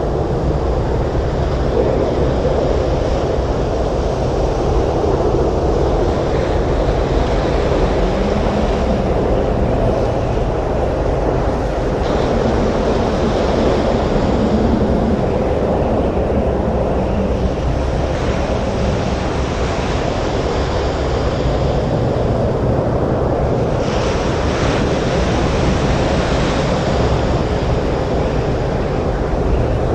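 Stormy surf pounding a beach in strong wind: a dense, unbroken roar of breaking waves, with a brighter hiss of a wave washing in surging up about two thirds of the way through.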